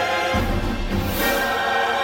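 Orchestral soundtrack music, with a deep drum hit about a third of a second in.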